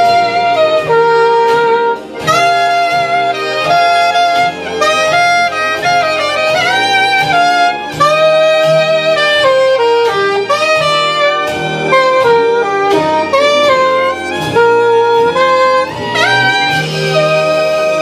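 Saxophone playing a slow melody with long held notes and slides, over a bass accompaniment.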